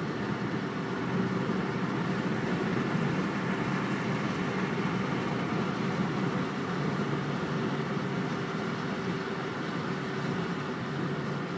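Steady road and engine noise inside a Mercedes-Benz car cruising at freeway speed: an even rush of tyre and wind noise with a low hum running through it.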